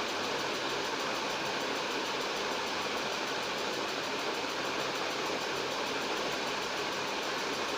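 A steady mechanical whir with a faint hum, unchanging throughout, with no knocks or clicks.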